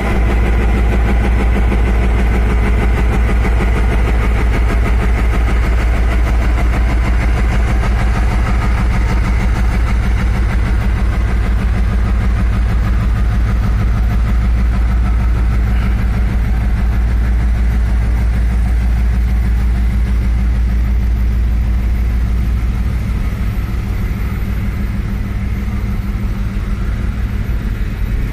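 Taiwan Railway diesel-electric locomotive R156 working under power as it pulls a freight train away from the station, its engine loud and steady, with the wagons rolling by on the rails. The engine sound eases a little near the end as the locomotive draws away.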